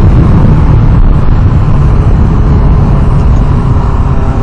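Steady, loud wind noise buffeting the microphone of a camera on a moving Kawasaki Ninja sport bike, with the motorcycle's engine running underneath.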